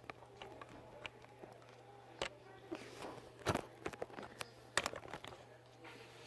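Small magnetic metal balls clicking as they are handled and snapped together: a few scattered sharp clicks, the loudest about halfway through.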